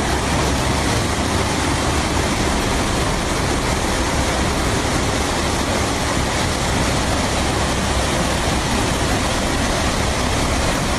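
Floodwater rushing in a torrent: a loud, steady wash of noise without a break.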